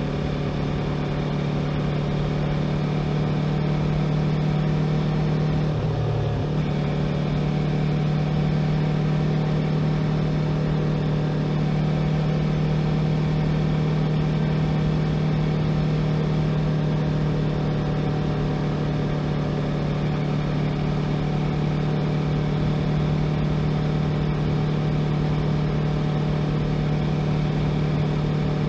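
Yamaha YZF-R3's parallel-twin engine running steadily as the motorcycle cruises along the road. The engine note breaks briefly about six seconds in, then settles back to a steady pitch.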